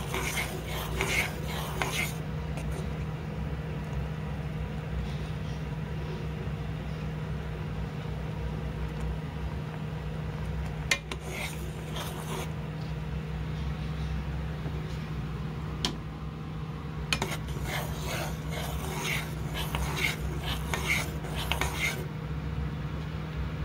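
A spoon stirring orange sauce in a dark nonstick saucepan as it simmers and thickens, scraping and clinking against the pan in bursts: near the start, around the middle, and through most of the last few seconds. A steady low hum runs underneath.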